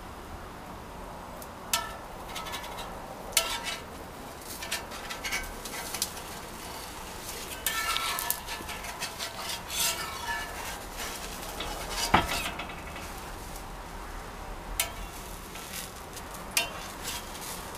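A spatula scrapes and taps irregularly against a cast iron frying pan as a pancake fries, with a sharper knock about twelve seconds in. A low frying sizzle runs underneath.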